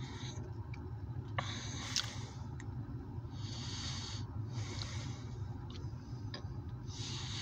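Heavy breathing close to the microphone, four short hissing breaths a second or so apart, over a steady low rumble heard from inside a vehicle.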